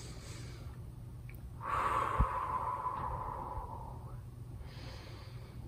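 A woman breathing slowly and deeply: an in-breath at the start, then a long out-breath blown through pursed lips from about a second and a half in, then another in-breath near the end. A soft low bump comes about two seconds in.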